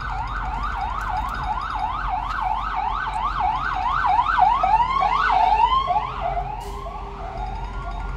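Emergency vehicle siren going by: a fast rising-and-falling yelp, about three sweeps a second. About four seconds in it slows to wider, lower sweeps, loudest there, then fades away.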